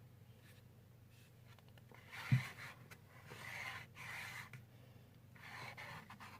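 A spoon scraping and stirring clear glue in a bowl, in three or four strokes of about a second each, with a single knock about two seconds in.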